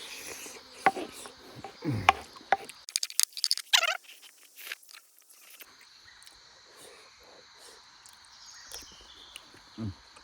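Insects buzzing steadily in a high, continuous drone. In the first four seconds there is a flurry of sharp clicks and knocks, the loudest sounds here, with a short falling sound about two seconds in.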